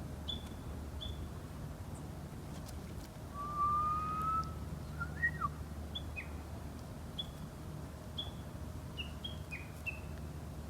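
A small bird repeating short high chirps, spaced irregularly, more often in the second half. About three and a half seconds in, a person whistles one long slowly rising note, the loudest sound here, then a few short whistled notes, over a steady low hum.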